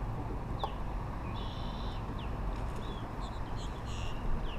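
Birds calling: short falling chirps every second or so, and a couple of harsher, buzzy calls, over a steady low background noise.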